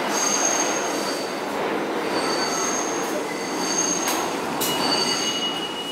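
Subway train running through the station, its wheels squealing in several high, steady tones that come and go over a steady rumble. A lower squeal joins about four and a half seconds in.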